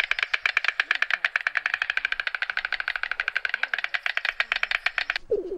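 White stork bill-clattering: a fast, dry, machine-gun rattle of the mandibles knocking together, stopping about five seconds in. A lower, repeated animal call starts right after.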